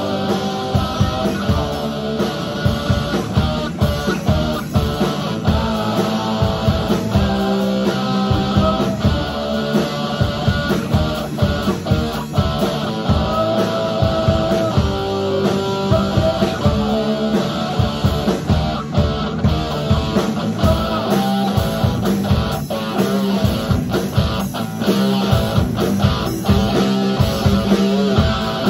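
Live rock band playing: amplified electric guitar over a drum kit, instrumental, with sustained guitar notes and a steady drum beat.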